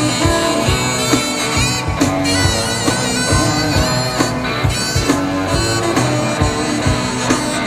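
Background rock music with a steady drum beat and sustained lead notes.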